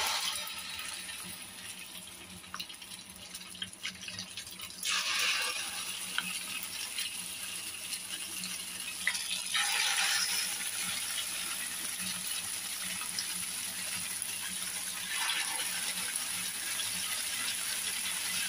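Egg, tofu and spring-onion batter sizzling in hot oil in a square metal pan. A sudden hiss breaks out as the first spoonful hits the oil, and the sizzle swells again about 5, 10 and 15 seconds in as more batter goes in.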